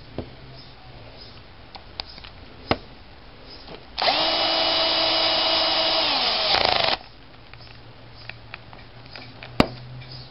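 Cordless drill-driver on a light clutch setting running for about three seconds, driving one of the small case screws into a differential housing; its pitch dips as it winds down. A few sharp clicks of small parts being handled before and after.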